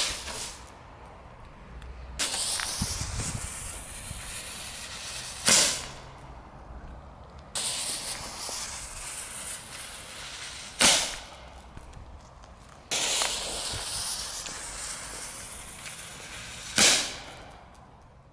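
Four Nico Kobalt Bombetten mini fire pots going off one after another: each hisses for about three seconds while its fuse burns, then fires with a sharp bang that throws out gold glitter. The bangs come near the start and about five and a half seconds apart after that.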